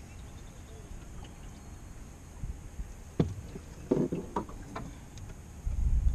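Wind buffeting the microphone in a low rumble that turns loud near the end, with a few short faint sounds a little past the middle.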